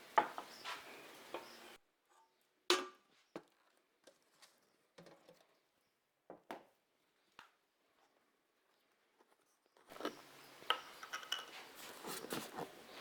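Scattered light clinks and knocks of small hard objects being handled, about a dozen single strikes spread over several seconds, with dead silence between them in the middle.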